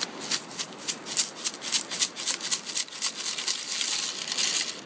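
Beach sand scoop being shaken to sift a load of sand, with shell fragments rattling in its mesh basket in a fast, irregular run of clicks.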